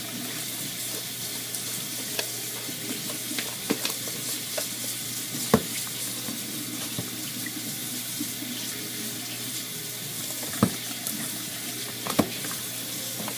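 Water running steadily from a tap, with scattered short clicks and knocks over it.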